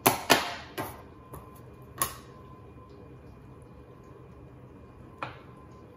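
Metal bench scraper pressed down through scone dough and knocking against the countertop: a few sharp taps in the first two seconds, the loudest near the start, then one more about five seconds in.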